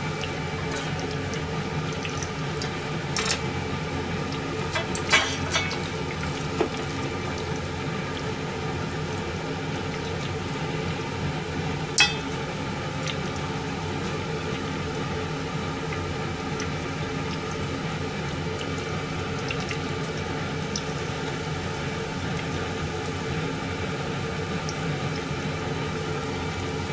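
Cabbage kakiage batter frying in a copper pot of hot oil, a steady bubbling sizzle. A few clinks of chopsticks and a metal ladle against the pot and bowls, the sharpest about twelve seconds in.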